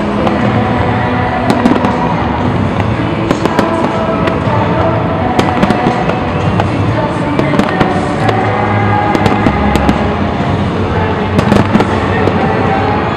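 Large fireworks display going off without pause: many overlapping bursts and sharp crackling cracks.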